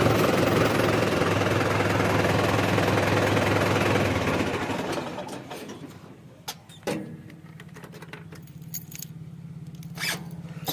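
Farm machinery engine running loud with a dense mechanical clatter, fading away about five seconds in and leaving a quieter, steady engine hum with a few sharp clicks.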